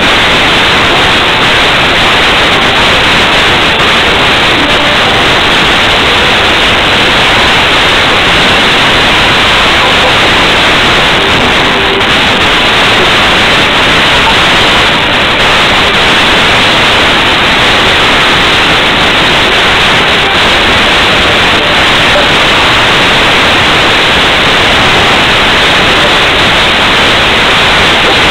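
Loud, steady static-like hiss, unchanging throughout, with no distinct events in it.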